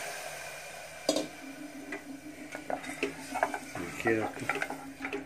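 Wooden spatula stirring rice, peas and freshly added water in a steel pressure cooker, with scattered knocks and scrapes against the pot. The noise of the water just poured in fades away in the first second.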